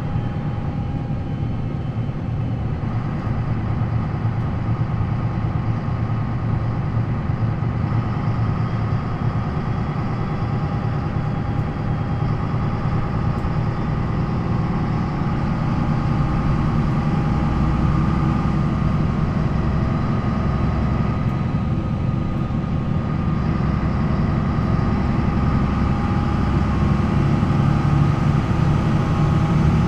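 Diesel engine of an MAN NL 263 low-floor city bus (D28 engine with ZF Ecomat automatic gearbox) running steadily, growing slightly louder toward the end.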